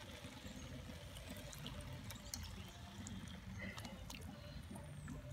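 Whisked eggs being poured from a bowl into a cast-iron camp Dutch oven, a faint trickle and pour, with a few faint ticks over a low steady rumble.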